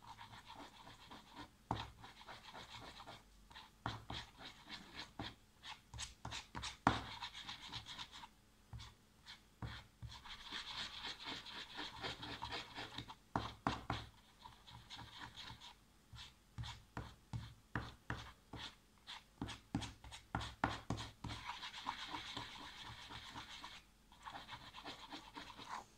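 Metal spoon stirring a glue-and-shaving-foam slime mixture in a plastic tub: irregular clicks and taps of the spoon against the plastic, with stretches of scraping.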